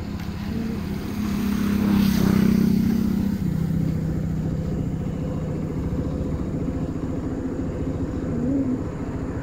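Motorcycle engine pulling away from a stop, rising in pitch and loudness, easing off about three and a half seconds in, then running steadily along the road with wind and road noise.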